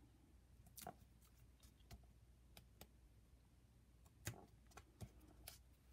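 Near silence broken by faint, scattered ticks and clicks of fingernails picking the paper backing off foam adhesive dimensionals stuck on a cardstock panel, the loudest a little past four seconds in.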